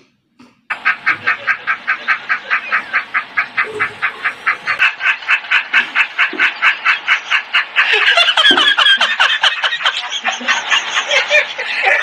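High-pitched, rapid cackling laughter, about five 'ha's a second, starting just under a second in. About two-thirds through it grows louder and more tangled.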